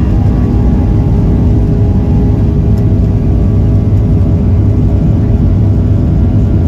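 Boeing 737-800's CFM56 jet engines heard from inside the cabin: a loud, steady low rumble and whir of the aircraft under way on the ground.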